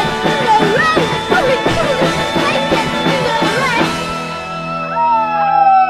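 Live rock band: drums, electric guitar and keyboard, with sung vocals. About four seconds in the drums and guitar drop out, leaving a held keyboard chord, and near the end a voice begins a long falling howl.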